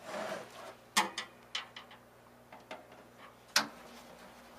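Handling noise from a Behmor 1600 home coffee roaster being turned around on a wooden tabletop: a brief rubbing scrape, then a string of sharp clicks and knocks from its housing, the loudest about three and a half seconds in.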